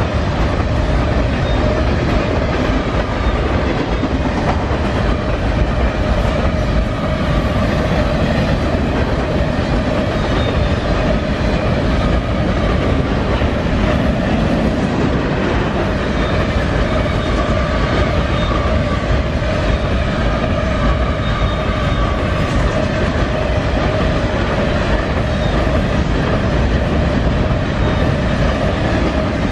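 Freight train of empty potash covered hopper cars rolling steadily past close by: continuous rumble and clatter of steel wheels on the rail, with a steady ringing tone running through it.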